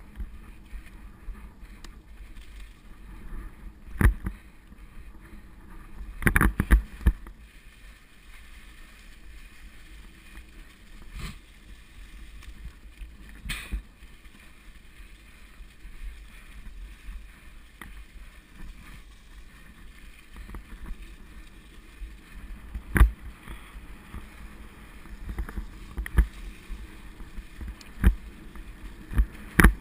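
Mountain bike rolling along a dirt singletrack covered in dry leaves: a steady low rumble with sharp knocks and rattles as the bike hits bumps. The knocks come every few seconds, with a quick cluster of them about six seconds in.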